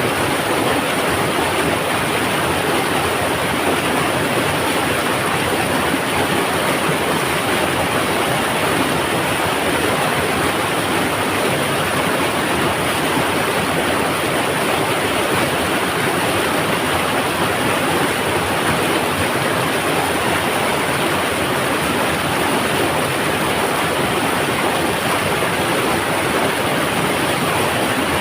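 Mountain river water rushing with a steady, loud rumble that does not let up.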